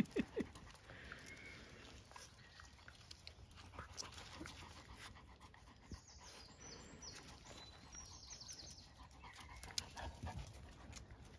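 Puppies and dogs playing over a cloth shopping bag: faint scuffling and panting, with scattered small clicks and a few louder bumps right at the start and about ten seconds in.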